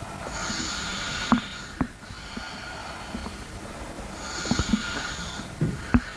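Stomach gurgling heard close up through a person's belly: short pops and squelches, some near the start and a cluster in the second half, over two long breaths about four seconds apart.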